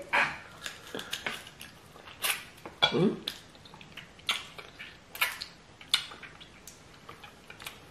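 Close-up mouth sounds of eating by hand: a run of short, wet clicks and smacks from chewing and sucking stew off the fingers, with a brief vocal sound about three seconds in.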